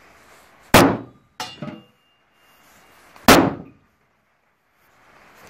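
A small hammer striking a metal panel sprayed with Titan protective coating: three hard blows about two and a half seconds apart, the last right at the end, each with a brief metallic ring, and a lighter knock just after the first.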